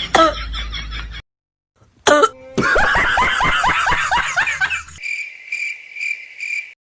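A rapid, loud fit of repeated coughing vocal bursts, each falling in pitch. It is followed by nearly two seconds of cricket chirping, a steady pulsing high trill that stops abruptly near the end.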